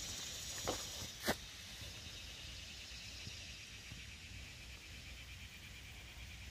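A few footsteps on a leaf-strewn dirt path in the first second and a half, the last one the loudest, then a faint, steady, pulsing trill of insects in the woods.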